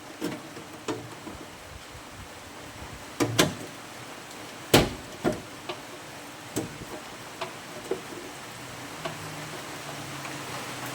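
Scattered knocks and taps of tools and sheet metal being handled, about a dozen over the stretch with the loudest about five seconds in. Steady rain hisses on the roof behind them.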